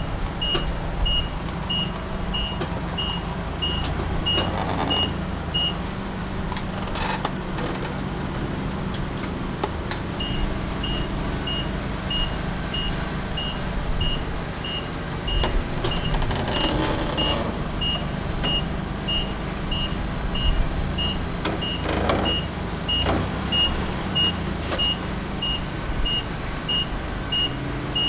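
Forklift engine running steadily while its backup alarm beeps rapidly and high, about three beeps a second. The alarm stops for a few seconds about six seconds in and then starts again, and a few clunks come through.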